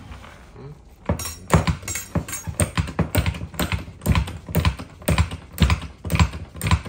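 Hydraulic hand pump worked in quick short strokes, a rhythmic clicking of about four clicks a second that starts about a second in, pressurising two hydraulic wedges.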